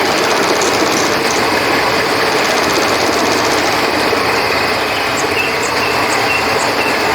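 Steady rush of flowing river water, with crickets chirping in short high trills over it.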